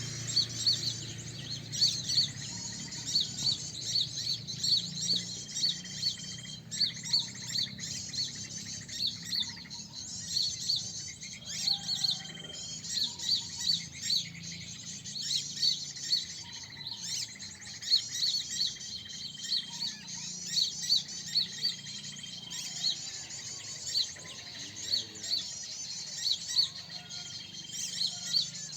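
A flock of small birds chirping and twittering densely in high-pitched, rapid calls, with a short flat whistle that recurs every few seconds.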